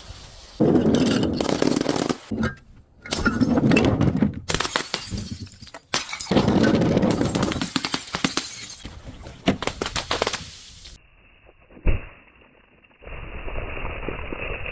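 Glass bottles breaking, one after another: sharp impacts followed by crunching and clattering of shards. In the last few seconds the sound turns dull and muffled, with a single thump.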